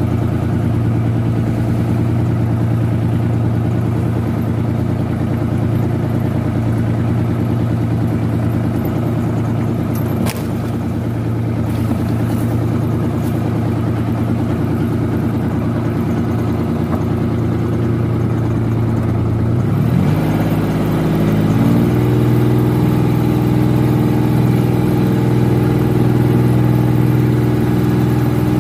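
Small fishing boat's engine running steadily under way. About twenty seconds in it revs up with a rising pitch and settles at a higher, steady speed.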